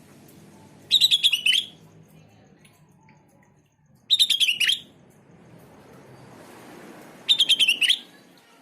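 Sooty-headed bulbul (kutilang) singing: three short phrases of rapid chirping notes, about three seconds apart, each under a second long and ending with a falling note.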